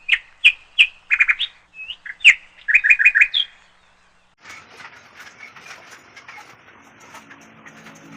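A small bird chirping in a quick series of sharp, high calls, some in rapid triplets, for about three and a half seconds. After a short pause, faint crackling and ticking noise follows, and music begins to fade in near the end.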